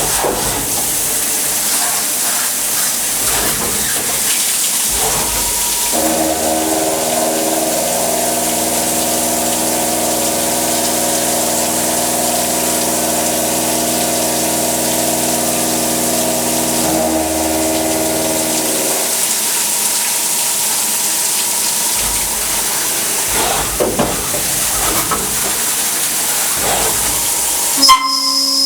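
SYIL X5 CNC milling machine at work, with a steady hiss throughout. From about six seconds in until about nineteen, a steady whine of several tones rises over the hiss, then drops away. Near the end there are a few sharp clicks.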